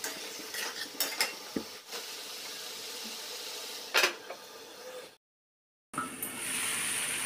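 Metal spatula clinking and scraping in an aluminium kadai over a steady low sizzle of frying, then a single loud metal clack about four seconds in as the aluminium lid is set on the pan. The sound drops out for a moment near the end and the covered sizzle carries on.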